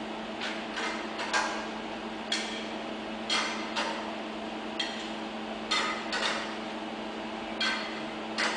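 Metal parts clinking and knocking as they are set by hand into the fixtures on a robotic welding cell's load table: about a dozen sharp metallic knocks at uneven intervals, some ringing briefly, over a steady machine hum.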